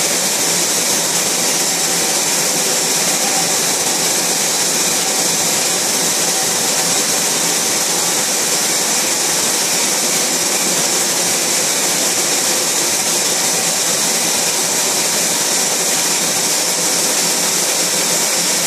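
Steady, unchanging machine noise with a strong hiss from a running two-colour 72×102 sheetfed offset printing press.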